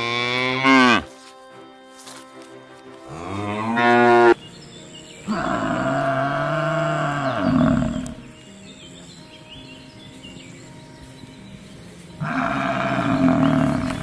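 Cattle mooing: four long moos with pauses between them, the first ending about a second in and the last near the end.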